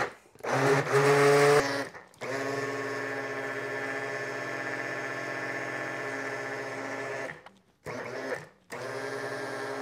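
Ninja personal blender motor running in pulses as the cup is pressed down, blending a thick smoothie of fruit, peanut butter and milk. There is a short burst about a second in, then a long steady run of about five seconds, then two shorter runs near the end.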